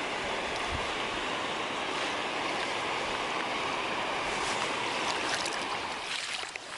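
Mountain stream water rushing steadily over rocks. Near the end the rush drops and a few light clicks are heard.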